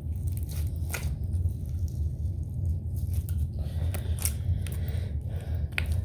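Homemade glue slime being stirred and squished: scattered short sticky clicks and squelches, busier in the second half, over a steady low hum.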